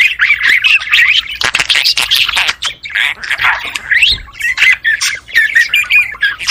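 Budgerigars chattering and warbling: a fast, unbroken run of chirps, clicks and squawks.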